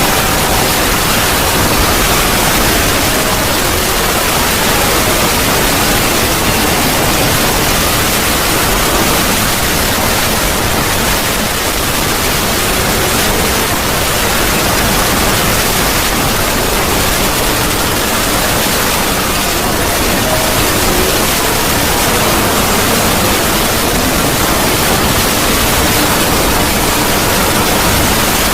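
A loud, steady wall of harsh static-like noise spread across all pitches, with faint tones buried in it: a distorted 'void scream' sound effect.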